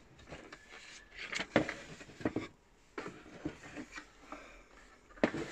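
Handling noise from a hard plastic electronic game unit being lifted and moved over a cardboard box and paper sheets: scattered light knocks and rustles, the loudest knock just before the end.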